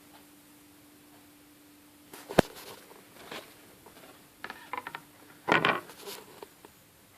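Bang & Olufsen Beogram 1200 turntable's mechanism working: a sharp click about two seconds in, then a run of small clicks and a louder clatter of clicks a little past halfway, over a steady low hum.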